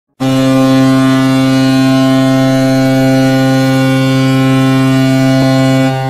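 Vegas Golden Knights hockey goal horn sounding one long, steady blast, cutting off just before the goal song begins.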